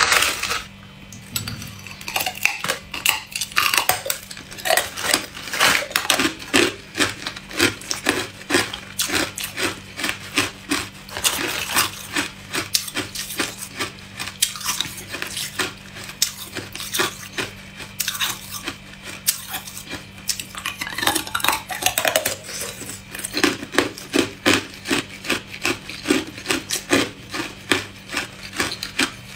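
Hard clear ice being bitten and chewed close to the microphone: a long run of crisp crunches and cracks, several a second, over a faint steady low hum.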